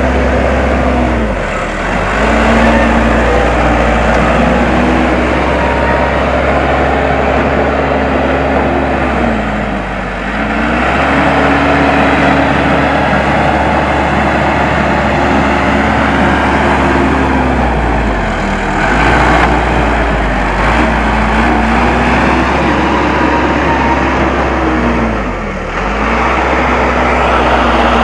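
Case 580M backhoe loader's diesel engine running at working revs. Its pitch sags and recovers about five times as the machine takes load while it works the earth.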